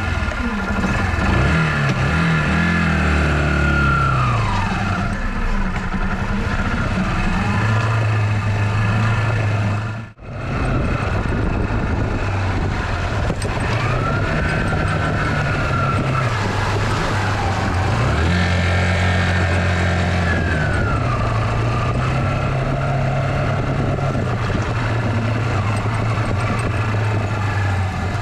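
Small 10-horsepower motorcycle engine running while being ridden under a heavy load of water containers, with the engine note and a higher whine rising and falling as the revs change. The sound breaks off for a moment about ten seconds in.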